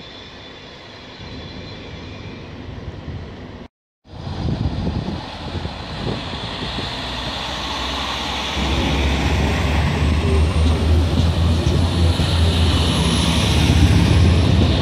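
Faint distant railway station sound with thin high squealing tones, broken off by a brief cut. Then a red Alstom Coradia LINT diesel multiple unit (DB class 648) runs along the platform close by, its diesel engines humming under power and growing louder, with a high whine over the top.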